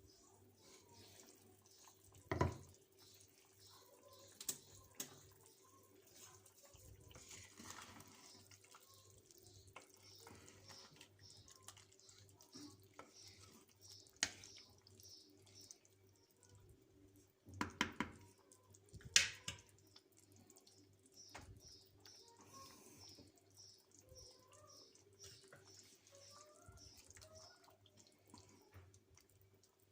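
Faint kitchen water sounds, dripping and trickling, with a few sharp knocks, the loudest about two seconds in and a pair a little past halfway.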